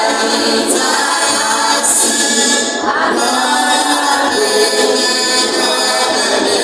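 A small vocal group singing in harmony a cappella, holding chords, with a change of chord about three seconds in.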